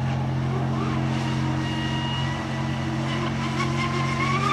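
A steady low drone throughout, with the thin whine of a fast electric radio-controlled catamaran's motor, rising in pitch near the end as the boat speeds up.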